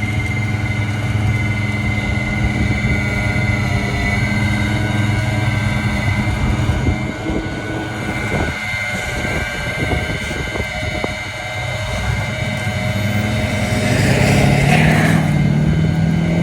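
Rollback tow truck's engine running with its hydraulic winch, giving a steady engine note and a steady high whine. About fourteen seconds in, the engine speeds up and the sound gets louder.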